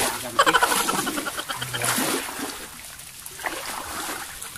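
Water splashing and sloshing in shallow swamp water. A brief voice-like sound in the first second or two is followed by quieter splashes.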